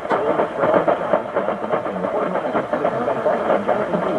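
AM radio receiver tuned between stations: a steady, muffled mush of static and noise with a weak, garbled signal wavering underneath.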